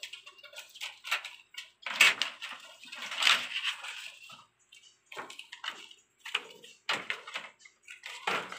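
Handling noise from lifting the white plastic reflector sheet off an LED TV's backlight panel: rustling and crinkling of the sheet with irregular knocks and scrapes against the metal backplate. The loudest rustles come about two and three seconds in.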